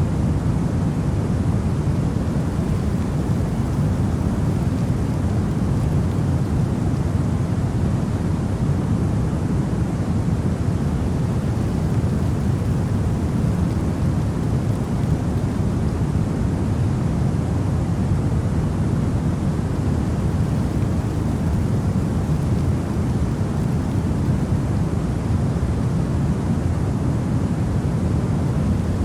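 Electronic white noise for baby sleep: a steady, deep hiss weighted toward the low end, unchanging throughout.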